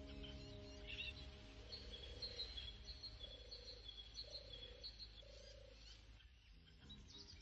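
Four short pulsed animal calls, about a second apart, frog-like, with faint high bird chirping above them. Soft background music fades out in the first second or so.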